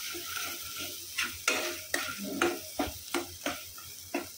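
Masala paste sizzling in oil in a kadhai while a steel spatula stirs it, scraping and knocking against the pan at irregular intervals over a steady sizzle. The oil has separated from the masala, the sign it is fully fried.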